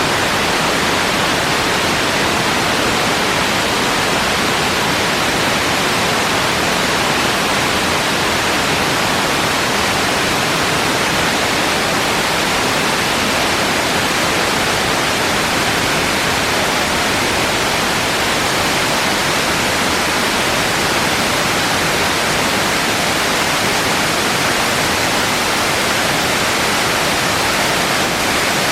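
A roughly 60-metre branching waterfall pouring down a rock face: a loud, steady rush of falling water.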